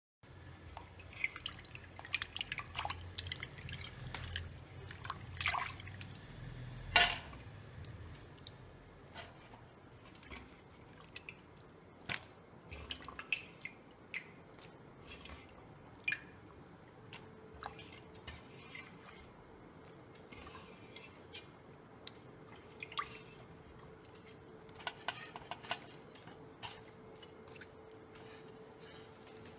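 Water dripping from freshly washed raw potato slices draining in a cloth, heard as scattered small drips and taps. One sharper knock comes about seven seconds in.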